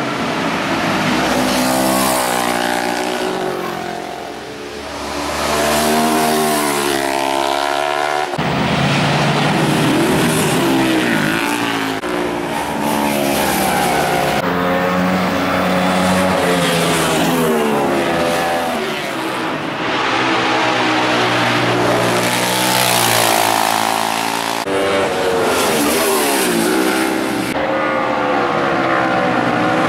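Racing motorcycles passing one after another at speed, their engine pitch rising and falling as they rev, with abrupt cuts from one pass to the next.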